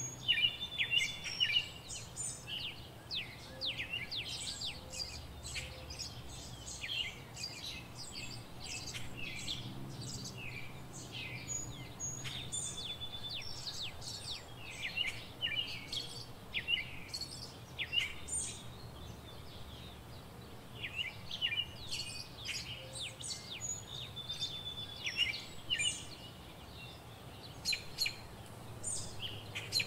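Birds chirping continuously, many short quick calls overlapping, over a faint low hum.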